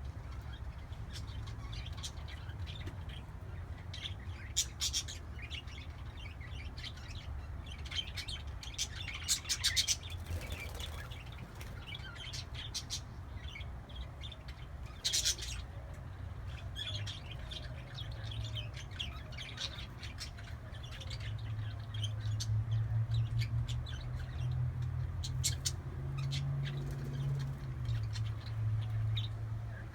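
Pet parakeets chirping and squeaking in their cage, in short scattered calls. A steady low hum runs underneath and gets louder over the last third.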